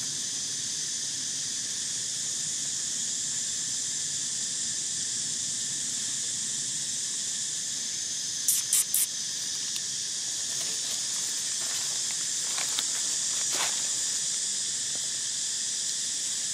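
Steady high-pitched buzzing of an insect chorus. About halfway through come three short, sharp high sounds in quick succession, then a few faint rustles.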